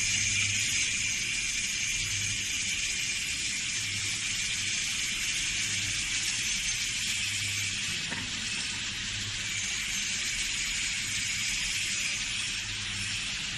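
Automated machine running: a steady high hiss over a low hum that swells at a slow, regular pace.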